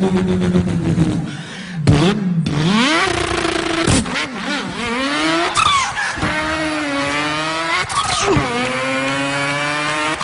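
A man imitating a car engine with his voice: a steady engine note at first, then revs that climb in pitch and drop back sharply, like upshifts through the gears, three or four times in a row.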